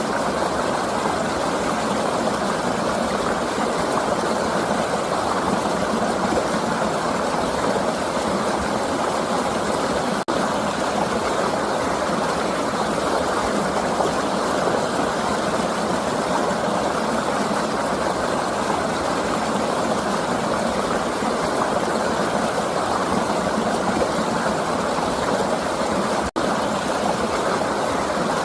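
River water flowing in a steady, even rush, broken twice by a momentary dropout.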